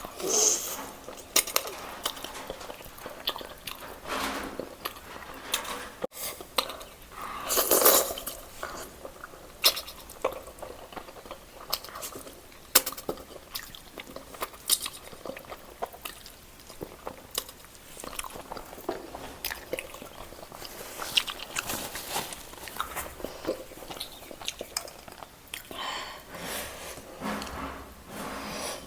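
A person eating close to the microphone: wet chewing and smacking with many short clicks of cutlery against a dish.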